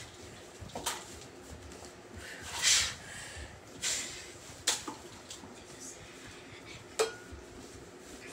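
Scuffling of a play fight: scattered light clacks and knocks, with a louder noisy rustling burst about two and a half seconds in.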